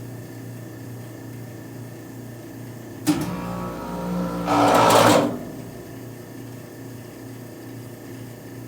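Chiller compressor hard-starting: a steady electrical hum, then about three seconds in a sudden clunk and a loud, strained hum that grows louder for about two seconds before cutting out, the compressor struggling to get going.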